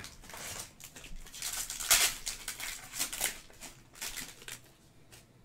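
Trading cards sliding against each other and foil pack wrappers crinkling as they are handled, in a series of rustling swishes that are loudest about two seconds in and die away after about four and a half seconds.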